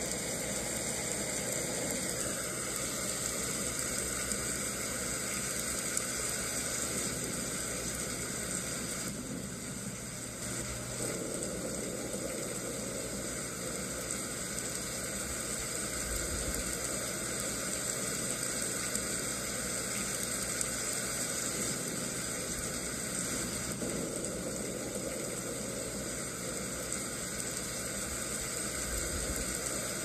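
Steady rain falling: an even, unbroken hiss of many drops.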